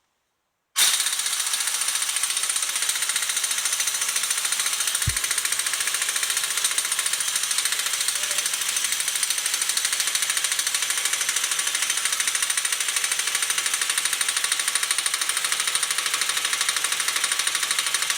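Power impact tool hammering steadily and without a break, starting abruptly about a second in, working on a stubborn, seized nut.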